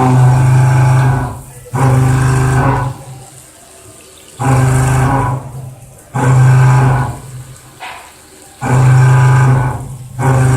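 CNC milling machine cutting with a new tool: a loud, steady humming drone during each cutting pass that drops away between passes. This happens about five times, each pass lasting a second or so.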